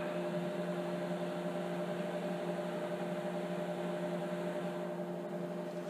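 Steady electrical hum with a few fixed tones over a faint hiss; no other distinct sound stands out.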